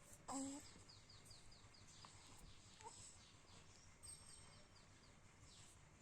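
A baby gives a short coo just after the start and a fainter one about halfway through. Faint, high, quick chirps repeat a few times a second underneath.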